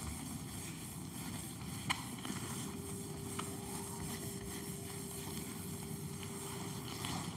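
Whiteboard duster rubbing back and forth across a whiteboard in repeated wiping strokes, with a couple of sharp taps.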